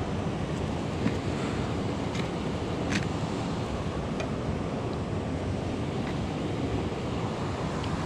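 Steady rushing noise, with a few light clicks of a metal spatula against a frying pan as a fish is turned.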